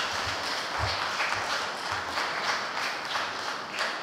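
Congregation applauding, a dense stretch of clapping, with a few low thuds in the first second.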